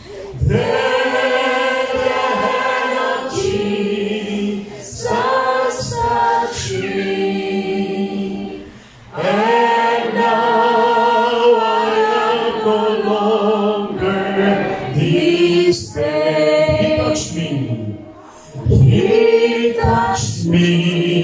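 A congregation singing a hymn a cappella, led by a man's voice over a microphone. It goes in long held phrases with short breaks between them.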